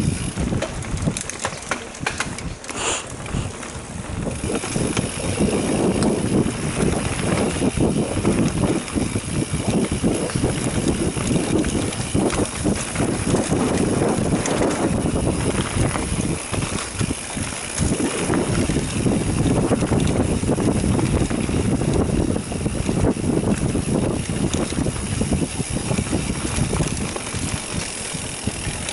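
Mountain bike riding down a dirt trail: tyres rolling over the dirt and the bike rattling over bumps, with wind buffeting the microphone. The noise grows louder about five seconds in.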